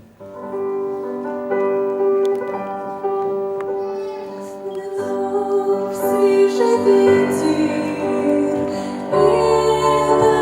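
Introduction of a song, with slow held chords and a melody above them. It grows fuller and louder as low bass notes come in about nine seconds in.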